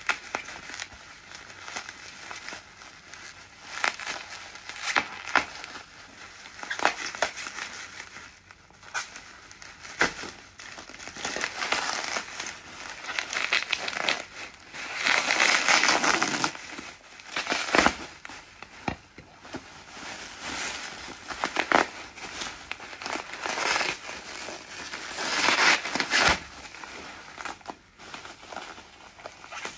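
Bubble wrap being pulled open and handled to unwrap a parcel, crinkling and rustling with irregular crackles. There are louder spells of rustling about halfway through and near the end.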